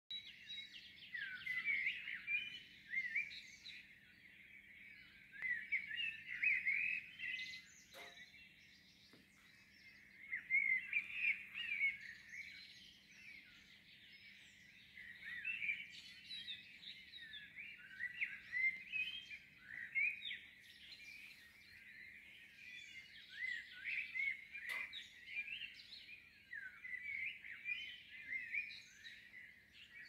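Dawn chorus of songbirds: several birds singing overlapping rapid chirping phrases that swell and fade every few seconds, over a faint steady low hum. Two short clicks, about 8 and 25 seconds in.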